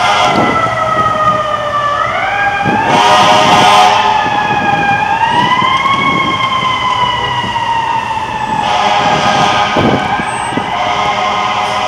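Fire truck siren wailing: its pitch sinks slowly, rises about two seconds in, climbs again around five seconds, then slowly falls.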